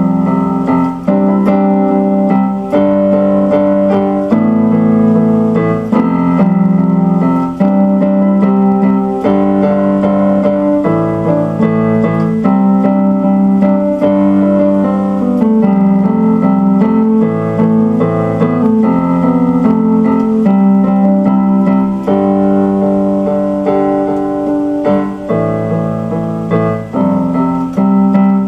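Electric keyboard played with a piano voice: slow instrumental chords, each held about a second or two before the next.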